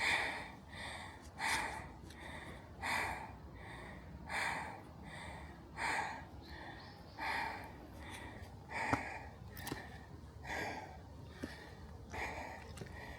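A person breathing hard from the exertion of climbing steep stairs, with a heavy exhale about every second and a half and a softer breath between each.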